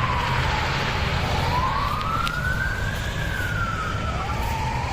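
Emergency vehicle siren wailing in a slow rise and fall, about one sweep every three seconds, over a steady low rumble of road traffic.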